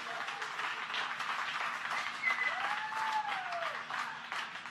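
A crowd of people applauding and cheering, with one long whooping shout that rises and falls about two and a half seconds in.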